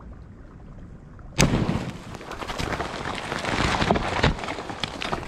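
A 2-pound tannerite charge packed in a beaver dam detonates about a second and a half in with one sharp blast. It is followed by nearly three seconds of spattering and crackling as water, mud and debris come down.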